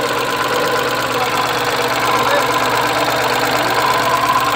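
Tata Ace Gold BS6 engine idling steadily, just refitted into the truck and running while it is checked for coolant leaks.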